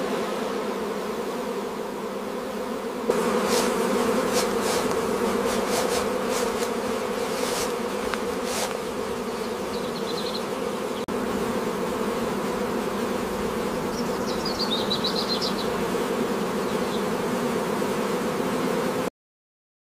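Swarm of honeybees buzzing in a steady hum around an open hive, with a few sharp ticks between about three and nine seconds in and some faint high chirps later. The buzzing cuts off abruptly just before the end.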